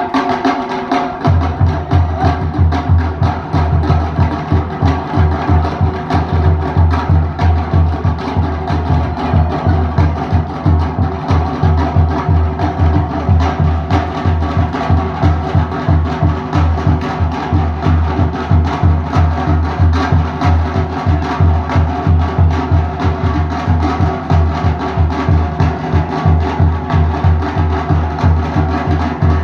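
Fast Pacific Island drumming: wooden slit log drums clattering in a quick, steady rhythm, with a deep bass drum coming in about a second in.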